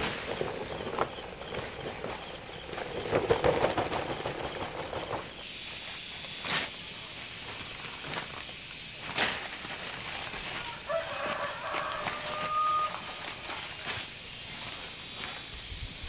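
Cement powder sliding out of a sack onto a sand pile and being scraped and turned with a hoe on a plastic tarp. The first few seconds are the loudest, followed by quieter scraping with a few sharp knocks, under a steady high whine.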